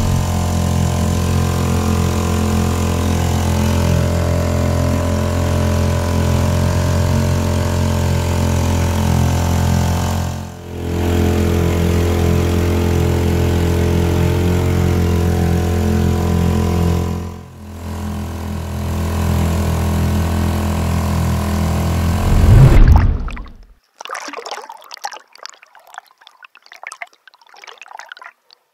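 Small Honda four-stroke outboard motor running steadily at speed, pushing an inflatable dinghy through the water. It dips briefly twice and stops near the end, where faint underwater crackling follows.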